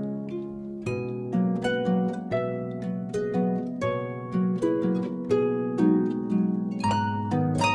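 Background music: an instrumental of plucked-string notes picking out a melody over a bass line, each note struck and dying away.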